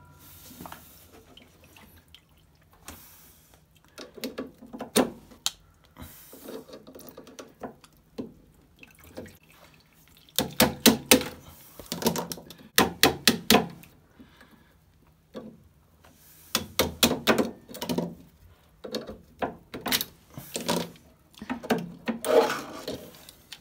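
Hand work inside a washing machine's tub through the heating-element opening: repeated irregular clicks, scraping and clattering of metal, with water dripping and splashing. The work is freeing a stray wire caught behind the drum, the cause of the machine's rubbing noise.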